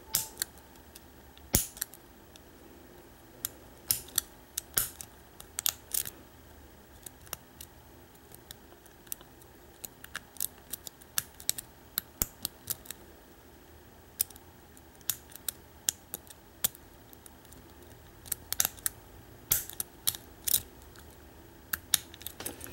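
Single pin picking of a Defiant deadbolt cylinder: irregular light metallic clicks and ticks from the pick and tension tool working the pins, coming in small clusters.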